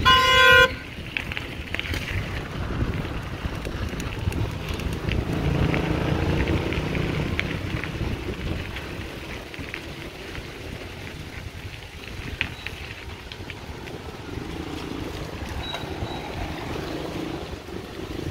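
A bicycle bell rings once, briefly and loudly, at the very start. Then comes the steady rumble of bicycle tyres rolling along the park paths, with wind buffeting the microphone, louder for a few seconds in the middle.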